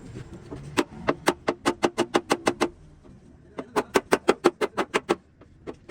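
Hammer tapping on a car's sheet-metal body panel during dent repair, two quick runs of light taps at about six a second with a short pause between.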